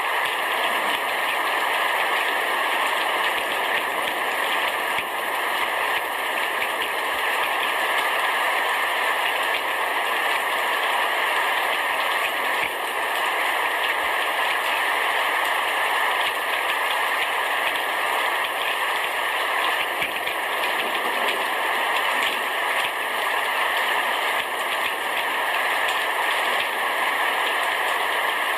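A rain shower falling on a house roof: a steady, dense patter of drops.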